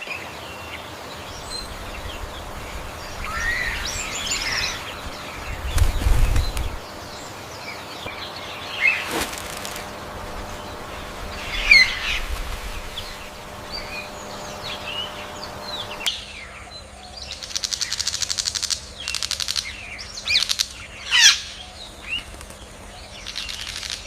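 Birds chirping and calling in short gliding notes, with wing flapping. About sixteen seconds in the background changes abruptly, and bursts of rapid fluttering follow between the calls.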